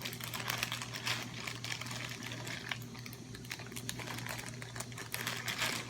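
Scattered small clicks, taps and rustles of hands handling slime containers and supplies, over a steady low hum.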